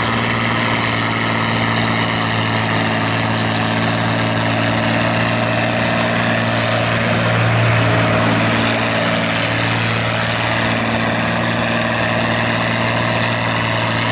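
Oliver 1655 farm tractor engine running steadily under load as it drags a weight-transfer pulling sled down the track at a slow, constant speed. The engine sound swells briefly about halfway through, when another tractor is close by.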